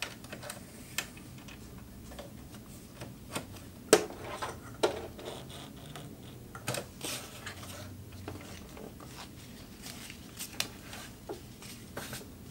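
Scattered clicks, light knocks and rustles of hands working a sewing machine and handling stiff nylon fabric, with the sharpest knock about four seconds in. The machine's motor is not running.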